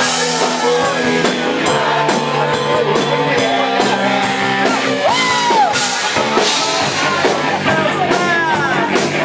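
Rock band playing live, with a singer's voice over the band.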